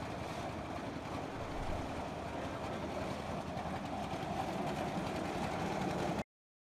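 Concrete mixer machine running steadily while mixing concrete; the sound cuts off abruptly to silence near the end.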